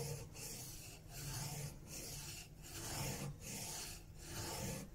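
Steel chisel bevel being pushed back and forth on a flat sharpening stone under firm pressure, grinding a 25° bevel. It makes a gritty scraping in even strokes, a little more than one a second.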